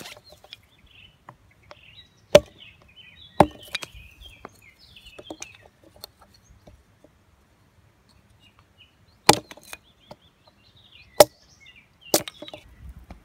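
Hatchet splitting small pieces of seasoned hardwood into kindling on a log chopping block: five sharp chopping strikes, two close together early on and three in the last few seconds, with lighter knocks between them.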